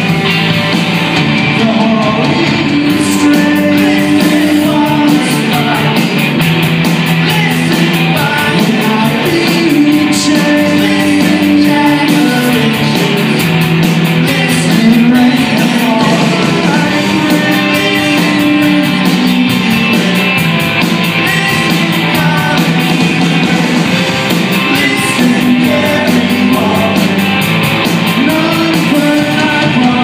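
Rock band playing live: electric guitars and a drum kit, with cymbals keeping a steady, quick beat throughout.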